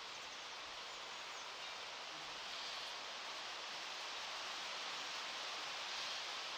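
Steady outdoor background hiss, even and without distinct events, with soft swells of higher hiss every few seconds.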